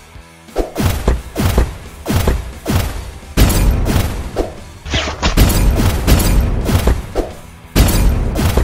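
Fight sound effects: a string of heavy thumps and impact hits, some with a falling swish, coming about twice a second at first and then crowding together from about three seconds in, over background music.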